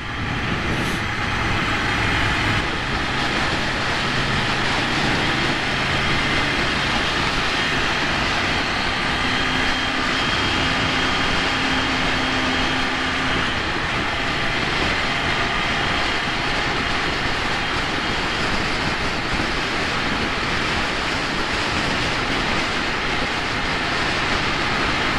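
Motorcycle riding at steady speed: steady wind rush over the microphone, with the Ducati Monster 797's L-twin engine running underneath.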